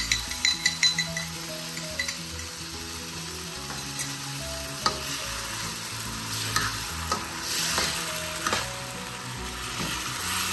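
Chicken and vegetables in a soy-and-oyster sauce mixture sizzling in a stainless steel wok as they are stirred with a metal spatula. The spatula scrapes and clinks against the pan, with a few sharp clinks near the start and a longer scrape a little past the middle.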